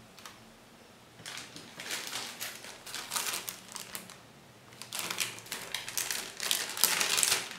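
Plastic zip-lock bag crinkling and rustling in uneven spells, starting about a second in and loudest near the end, as a replacement laptop cooling fan is taken out of it.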